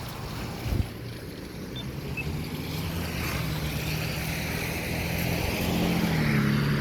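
A vehicle drawing closer, its low engine hum and road noise growing steadily louder, with a brief low thump about a second in.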